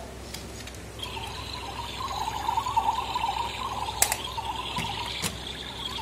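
Battery-powered toy kettle playing a bubbling, boiling-water sound effect that starts about a second in, with a couple of sharp clicks from the plastic toy being handled.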